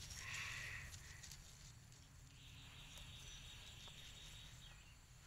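Faint outdoor ambience: a steady high insect buzz, strongest from about two seconds in, over a low rumble.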